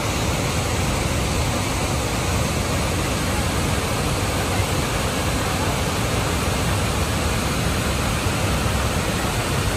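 A large waterfall and the rapids below it, rushing in a steady, unbroken wash of water noise.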